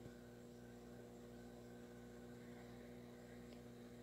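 Near silence with a faint steady hum.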